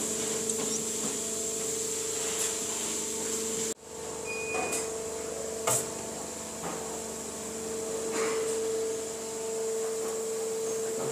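Steady hum of factory machinery with a high hiss over it, with a few light knocks and clicks of metal being handled. The sound drops out briefly a little before 4 seconds in.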